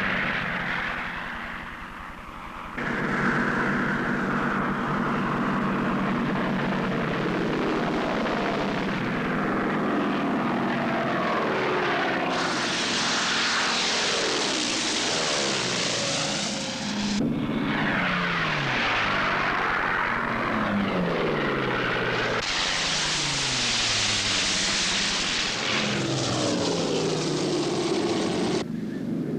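Piston-engined propeller warbirds running and flying past, their engine note falling in pitch as each one passes. The sound changes abruptly several times, as at cuts between shots.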